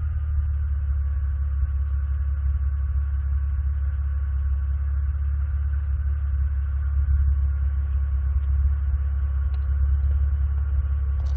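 Opel Vectra C OPC's turbocharged V6 idling steadily with a low, even rumble, on its original exhaust.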